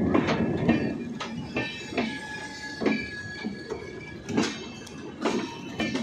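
LHB passenger coaches rolling past on the track: a steady rumble of steel wheels on rail, broken by irregular clunks as the wheels pass over rail joints, with a thin wheel squeal in the middle.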